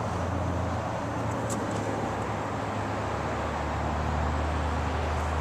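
Steady background vehicle noise: a low rumble under an even hiss.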